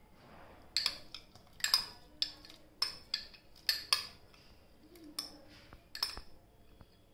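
A steel spoon clinks and scrapes against a glass bowl while scooping soaked rice out of it: about ten sharp, ringing clinks at irregular intervals.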